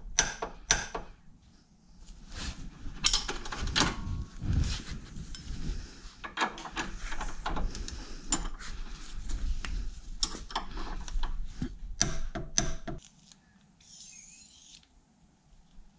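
Metal hand tools clinking and knocking, with irregular clanks and handling noise, then it goes quiet about three seconds before the end.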